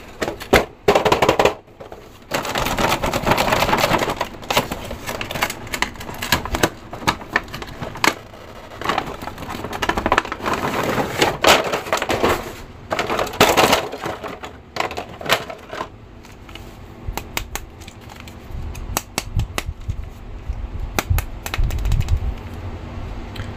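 Clear plastic blister packaging crinkling and crackling as action figures are handled and pulled from their tray, with many separate clicks and snaps in uneven spells.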